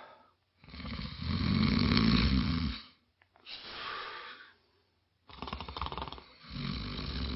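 A man snoring heavily: a long rasping snore, a softer breath out, then the rasping snore starts again about five seconds in.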